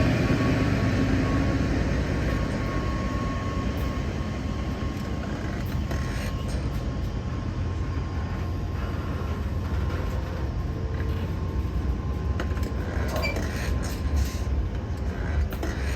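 Freight train rolling on harbour rail tracks: a steady low rumble that slowly fades, with a faint steady whine that dies away by the middle and scattered clicks and clanks in the second half.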